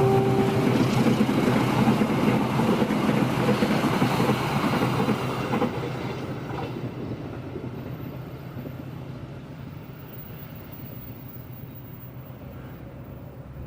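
A train passing at speed. Its horn sounds briefly and cuts off less than a second in; the noise of the train on the rails stays loud for about five seconds, then fades steadily as it moves away.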